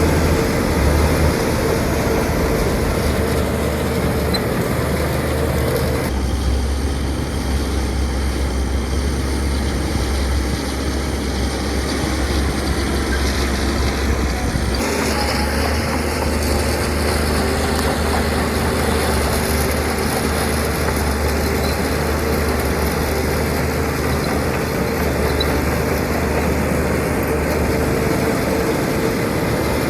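Heavy diesel construction machinery running steadily, with engine drone and working noise. The sound changes abruptly about six and fifteen seconds in.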